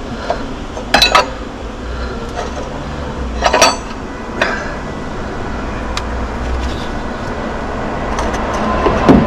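Hand tools and metal parts clinking and knocking while a bus engine's air compressor is being fitted: a couple of sharp clinks about a second in, another cluster around three and a half seconds, a few lighter taps, and more clinks near the end, over a steady low hum.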